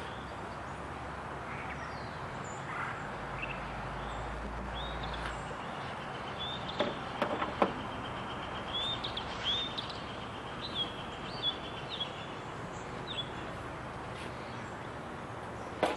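Outdoor background noise with a bird chirping repeatedly, short rising calls through the middle of the stretch. A few sharp knocks come close together about seven seconds in.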